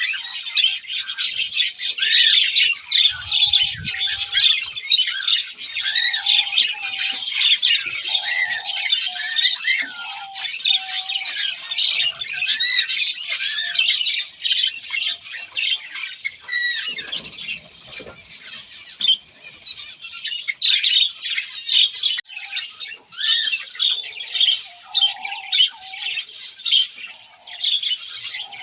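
Many caged birds chirping and squawking at once, a continuous chorus of overlapping high-pitched calls, with a couple of faint low thuds.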